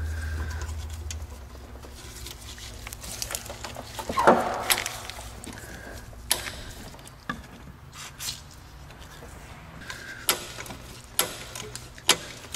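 Ratchet wrench loosening a 10 mm bolt on a tube in an engine bay: sharp metallic clicks scattered roughly once a second, with one louder clank about four seconds in.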